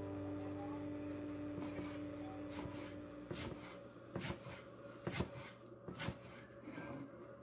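A knife chopping fresh cilantro on a wooden cutting board: a slow, uneven series of sharp chops, roughly one a second. Background music fades out during the first three seconds.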